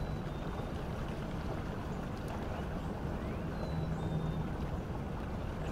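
Water gushing out of a culvert pipe into a rocky creek pool, a steady churning rush and splash.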